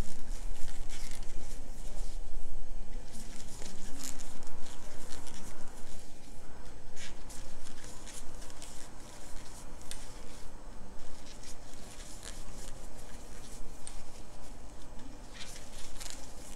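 Thick polyester cord rubbing and rustling against a plastic crochet hook as single crochet stitches are worked along a row, in irregular short scrapes and soft clicks.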